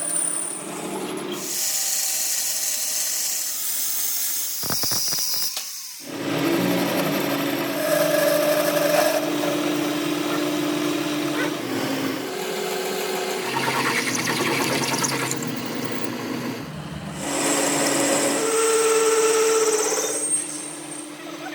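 Workshop machine tools, chiefly a lathe, running in a string of short clips that change abruptly every few seconds: a steady motor tone under loud cutting noise.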